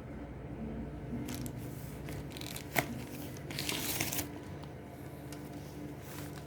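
Pages of a small paper oracle-card guidebook being leafed through: several short rustling page turns and a soft tap about three seconds in.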